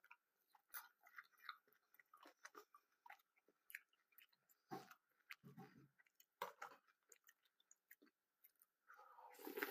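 Cornflakes being chewed close to the microphone: soft, irregular crunches and crackles. A longer breathy sound comes near the end.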